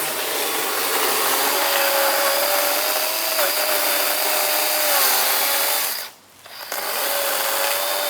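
Kobalt 24-volt battery electric chainsaw running and cutting into a tree trunk: a steady motor whine over the hiss of the chain. The whine cuts out for about half a second around six seconds in, then starts again.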